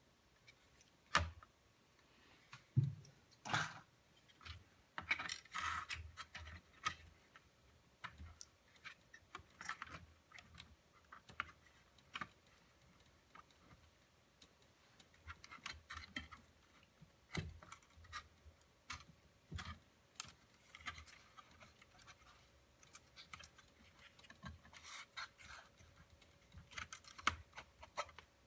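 Irregular small clicks, taps and short scrapes of hands working on a plastic laptop, some of them sharper knocks, with a faint steady tone in the last third.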